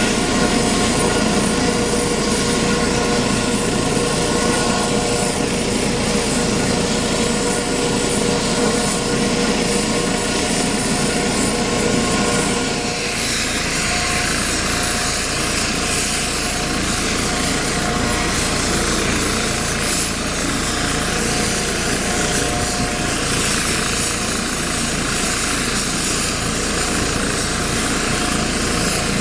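Eurocopter EC155B helicopter running on the ground: the steady whine of its twin turboshaft engines over the rush of the turning main rotor. The mix of tones changes abruptly about halfway through. This is a ground run after maintenance, ahead of a test flight.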